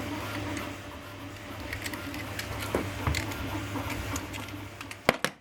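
Small mechanical clicks and scrapes of screws being undone in a PC case, over a steady low hum, with two sharp clicks near the end.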